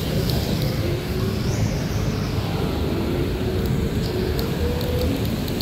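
Traffic on a rain-wet city street: vehicle engines and tyres passing over a steady low rumble.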